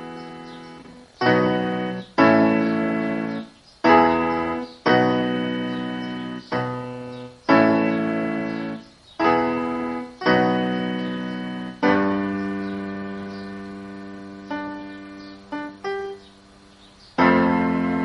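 Solo piano playing slow block chords, each struck and left to ring and fade, with short breaks between them. Past the middle one chord is held longer, then a few short notes and a brief pause come before the next chord.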